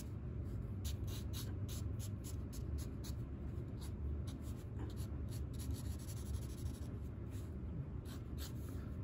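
Colour marker tip scratching and rubbing on sketchbook paper in many quick short strokes as the hair is coloured in, over a steady low hum.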